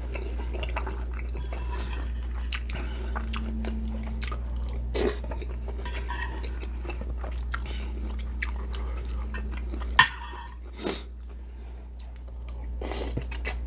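Close-miked chewing and biting of pinakbet, a pork and vegetable stew, with light clicks of utensils against dishes. A sharp click stands out about ten seconds in.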